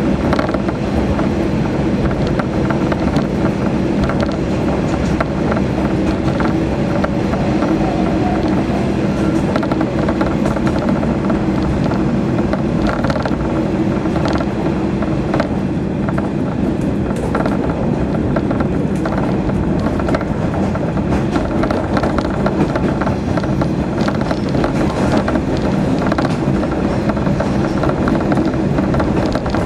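Diesel engine of a KiHa 40 series railcar running steadily, a continuous even drone with no change in pitch or loudness.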